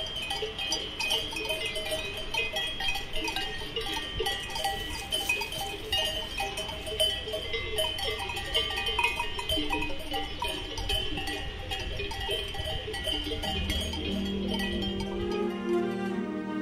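Many Swiss cowbells clanging irregularly and overlapping, as from a grazing herd, over a low rumble. Slow bowed-string music comes in near the end.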